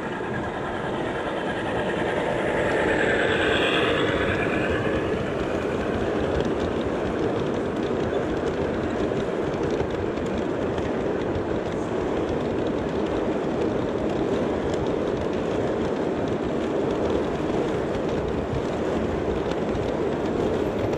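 Large-scale garden-railway model freight train rolling past on brass track. It grows louder over the first few seconds as it nears, then rolls on steadily as the hopper cars go by.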